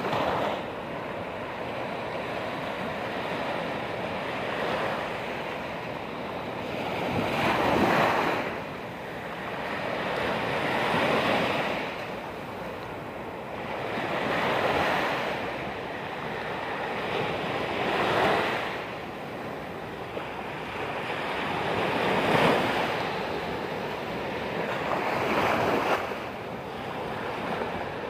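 Surf breaking on a sandy beach: waves crash and wash up the shore one after another, each surge swelling and fading about every three to four seconds.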